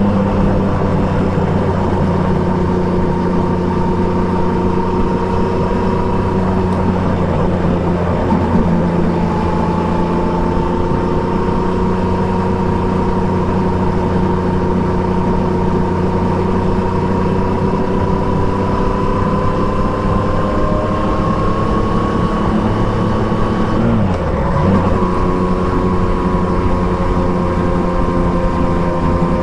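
Triumph Trident 660's inline three-cylinder engine, through an Akrapovič exhaust, pulling steadily under way, its revs climbing slowly. The revs dip briefly about 8 seconds in and again about 24 seconds in.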